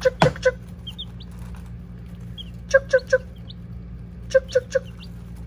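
A person clucking "chuk, chuk, chuk" in quick groups of three, three times, calling baby chicks to food held in the hand as recall training. Short, high, rising chick peeps come between the calls.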